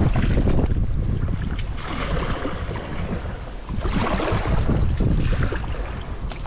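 Wind buffeting a GoPro's built-in microphone in a steady low rumble, over choppy sea water splashing and slapping against a kayak. The splashing swells several times.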